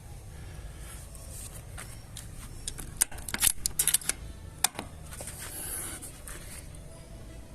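A quick run of sharp metallic clicks and clacks from the rifle being handled, about three seconds in, with a last single click near five seconds. A low rumble of wind on the microphone runs underneath.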